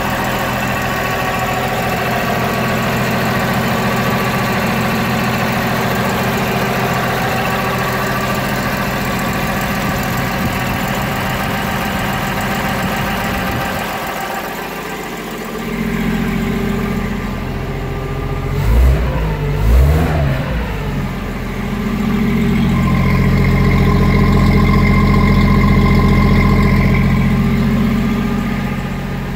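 Toyota 1F 3.9-litre inline-six petrol engine of a 1970 FJ40 Land Cruiser running steadily at idle with its original choke partly on. About two-thirds of the way in the throttle is blipped twice in quick succession. The engine then runs louder and deeper for several seconds before easing back near the end.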